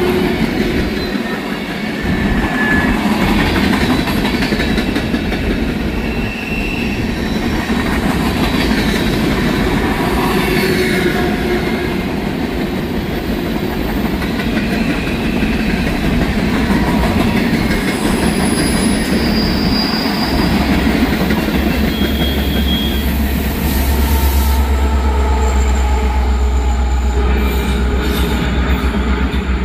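Norfolk Southern freight train's cars rolling past, steel wheels clacking on the rail with many short high-pitched squeals. A deep low rumble strengthens about two-thirds of the way through, and a few sharp clicks come near the end.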